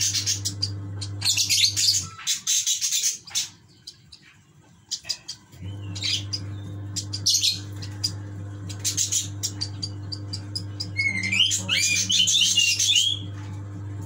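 A lovebird chick about four weeks old, still hand-fed, giving rapid high-pitched begging calls as it takes food from a syringe. The calls come in clusters with a pause about two seconds in, and a steady low hum runs underneath, dropping out during that pause.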